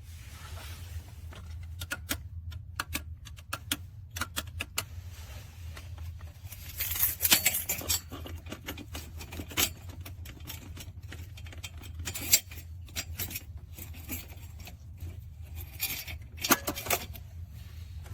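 Clicks, taps and short rattles of a small pistol safe being handled, with louder clusters about seven and seventeen seconds in, over a steady low hum.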